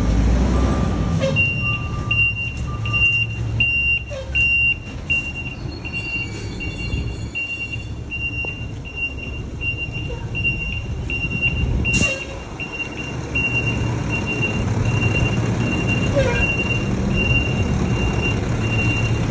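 Recycling truck's backup alarm beeping about twice a second over the low rumble of the truck's engine. The beeping starts about a second in, and a single sharp click comes about two-thirds of the way through.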